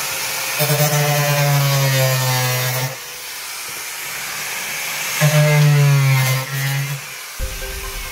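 Small handheld power tool running in two bursts of about two seconds each, cutting, its pitch bending down as each run ends.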